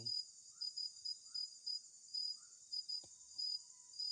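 Insects chirping: a high-pitched chirp pulsing on and off a few times a second over a steady high hiss. Faint lower calls repeat every half second or so, with a single click about three seconds in.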